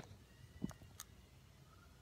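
Near silence: faint room tone with two soft clicks close together about a second in.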